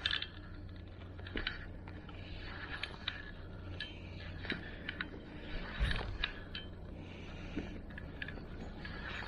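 Seaside ambience with a steady low rumble of wind and water, dotted with scattered light clicks and a dull knock about six seconds in.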